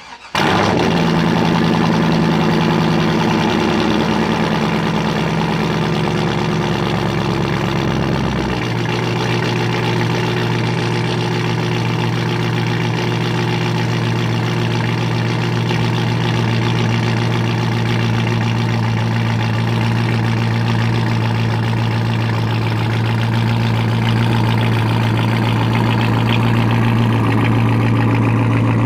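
Procharged C5 Corvette Z06's LS6 V8 cold started from the exhaust end, catching within half a second and going straight to a loud fast idle. About eight and a half seconds in the idle note steps down and settles into a steady idle.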